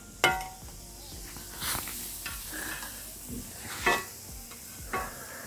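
Batuk (black-lentil fritters) frying and sizzling in hot oil, with a metal utensil stirring and clinking against the pan: a sharp ringing clink about a quarter second in, the loudest, and more clinks near the end.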